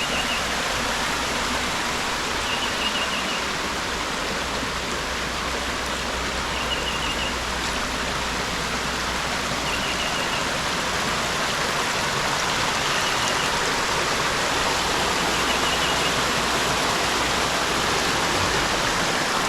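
Steady rushing of creek water over rocks, with a bird repeating a short, high chirping call about every three seconds.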